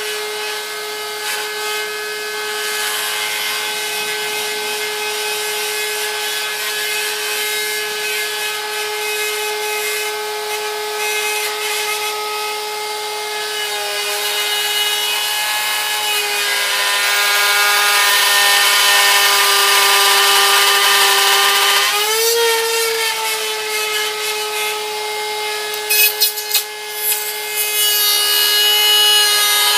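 Handheld electric router running and cutting an angled scarf bevel into a wooden plank. Its motor whine sags a little in pitch while the bit is under load, then jumps back up about two-thirds of the way through as the load comes off.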